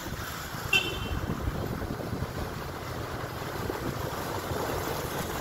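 Steady low rumble of wind on the microphone with street traffic, and one brief high-pitched squeak about a second in.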